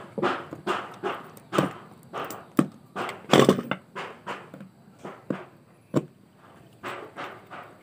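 Repeated sharp clicks and knocks, about two a second and uneven, from small hand tools worked against the metal end fitting of a stainless bidet flexible hose, with one louder scraping knock about three and a half seconds in.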